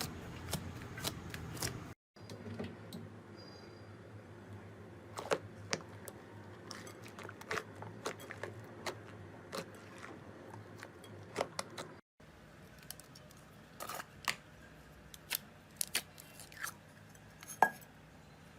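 Hands squeezing and poking slime: scattered small sticky clicks and pops over a faint hiss. There are three short clips, with a brief cut to silence about two seconds in and again about twelve seconds in.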